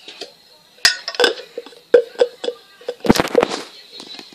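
Plastic toys handled and knocked against a hard stone floor: a few sharp knocks and clatters, with a quick cluster of them near the end.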